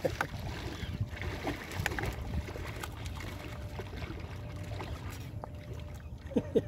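Shallow sea water lapping and splashing at the shore under a low, steady rumble of wind on the microphone, with a few faint clicks.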